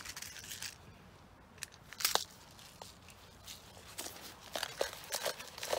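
Intermittent crinkling and crunching close to the microphone, a string of short sharp crackles with the loudest crunch about two seconds in.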